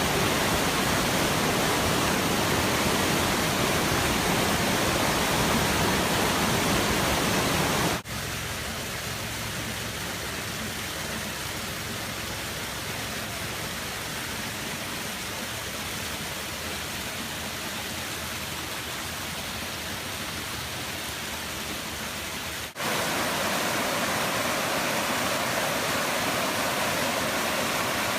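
Rushing water of small waterfalls and streams, a steady even splashing hiss. It cuts abruptly to a quieter, thinner rush about 8 seconds in, then back to a louder rush near 23 seconds.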